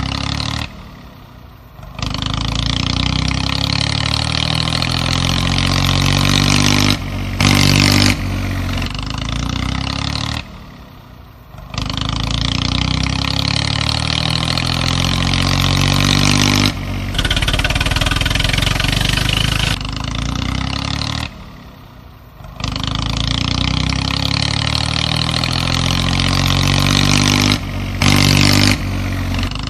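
Tractor engine running and revving as a looped sound effect. It drops out abruptly about every ten seconds, with short louder surges in between.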